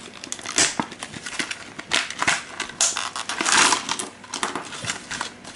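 Clear plastic bag crinkling as it is handled, with the dice inside clicking against each other in a string of sharp clicks; the longest stretch of crinkling comes about three and a half seconds in.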